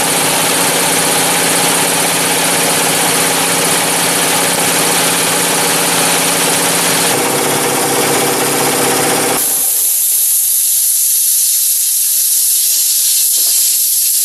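Snap-on two-stage electric air compressor running and pumping up its tank. About nine seconds in it shuts off and the pump winds down under a loud hiss of escaping air. It has run up to cut-out with its new head gasket holding: it works.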